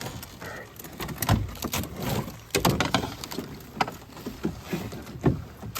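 Irregular knocks, thumps and scrapes of a small rowboat's hull as a person climbs out onto the bank and pulls the boat up to the shore.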